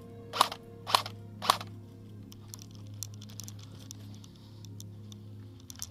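Airsoft gun firing single shots: three sharp cracks a little over half a second apart in the first two seconds, followed by faint scattered clicks.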